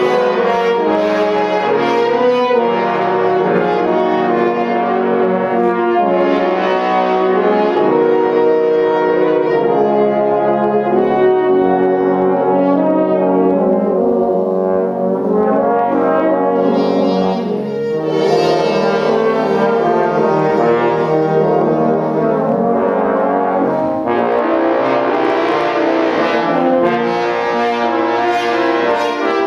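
French horns and trombones playing together as a brass ensemble: held chords and overlapping melodic lines at a steady, full level.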